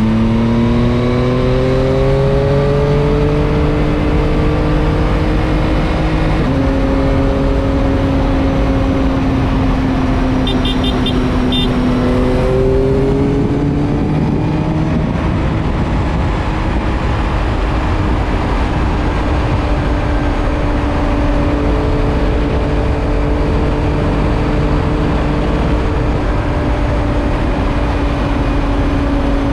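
Yamaha MT-09's three-cylinder engine pulling through the gears: its pitch rises, drops at upshifts about six and twelve seconds in, then holds steady at cruise. Heavy wind noise runs under it.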